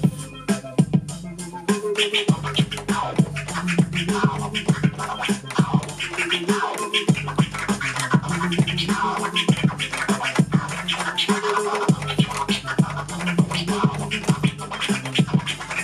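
A DJ scratching a vinyl record on a turntable, cutting the sound in and out with the mixer's crossfader, over a looping beat. The scratches come as many quick back-and-forth sweeps in pitch, and the beat's bass pattern repeats about every five seconds, picked up by the camera's built-in microphone.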